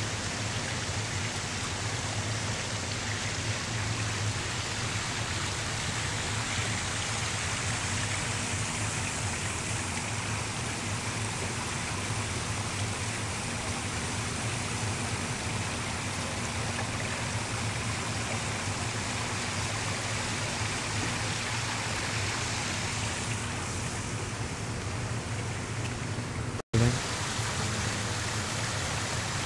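Steady rushing noise with a low hum underneath. Near the end it breaks off for an instant, followed by a short click.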